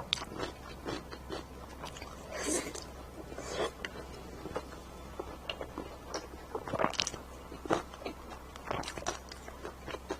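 Close-miked chewing and biting of fatty braised pork belly: wet smacking mouth sounds and irregular short clicks, a big mouthful at a time.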